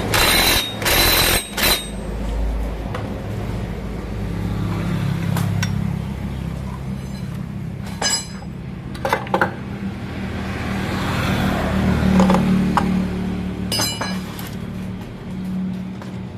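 Metal parts of a scooter's CVT clinking and knocking as they are fitted back together by hand, in a few short bursts, over a steady low hum.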